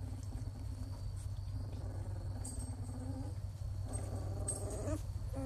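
Newborn Labrador puppies whimpering in their sleep: a few faint, drawn-out whines, each about a second long, over a steady low hum.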